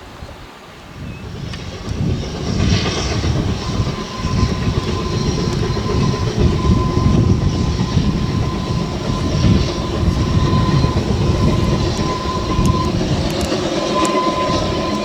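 NG/G16 Garratt steam locomotive No. 130 working hard uphill with its train, its exhaust beats and running gear swelling up loud within the first two seconds as it draws near. A thin, steady whine joins about four seconds in and carries on.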